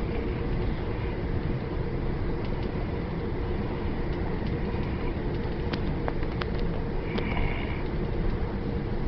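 Steady rumble of a moving train carriage with a few faint clicks, and a person's single short snore near the end.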